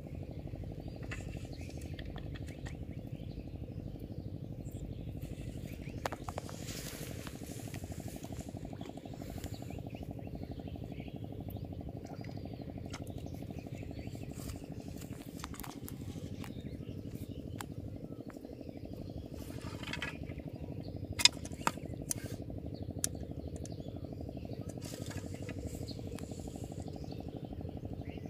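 A steady low drone made of a fast, even pulse. About two-thirds of the way in come a few sharp clicks, the first the loudest.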